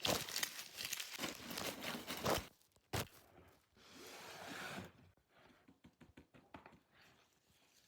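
Packaging crinkling and tearing as it is opened, dense for the first two seconds or so, then a single sharp click about three seconds in, a short smoother rustle, and a few faint taps.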